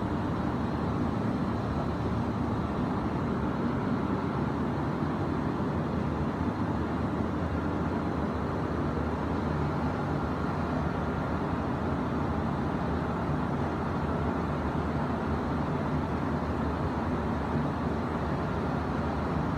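A brushing machine running steadily: a continuous, even mechanical noise, mostly low in pitch, that does not change throughout.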